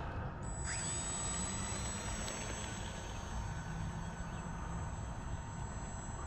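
Small electric RC plane's brushless outrunner motor (Suppo 2204/14) spinning up with a rising whine under a second in, then holding a steady high-pitched whine under power. A low rumble of wind on the microphone runs underneath.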